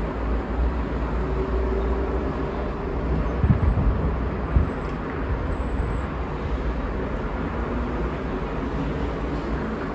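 Steady city traffic noise with strong wind on the microphone, gusts buffeting it in a few low thumps between about three and five seconds in.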